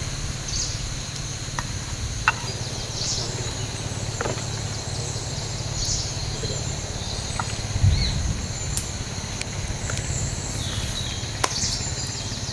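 Outdoor forest ambience: steady insect buzzing with a few short chirps, over a low rumble. Scattered small clicks, and a louder low thump about eight seconds in.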